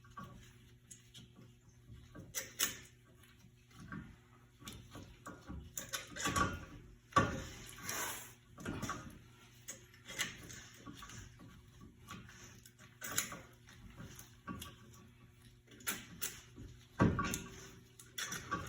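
Scattered metallic clicks, knocks and clanks of hand tools working on a car's rear brake caliper, some ringing briefly, with a faint steady hum underneath.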